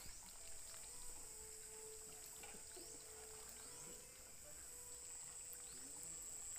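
Faint outdoor ambience: a steady high-pitched insect drone with a few short faint chirps.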